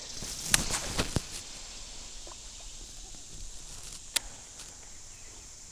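Fishing rod and baitcasting reel handled in a boat: three sharp clicks in the first second and a half and one more about four seconds in, with a brief hiss at the start.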